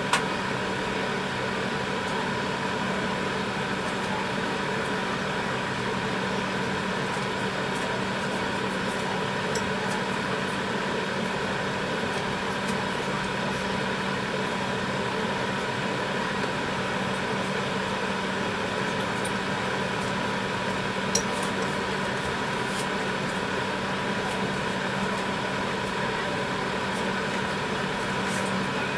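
Steady mechanical hum of a kitchen appliance over a pan of tteokbokki broth boiling on the cooktop, with a light click about 21 seconds in.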